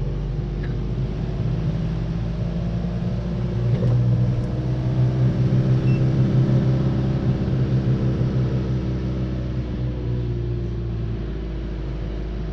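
Camping car's engine running as it drives along a town street, heard from inside the cab as a steady low hum. It grows louder about four seconds in and eases off again a few seconds before the end.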